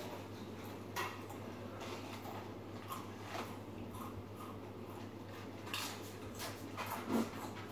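A few faint, scattered crunches and crinkles as a Doritos tortilla chip is handled and eaten, over a steady low hum.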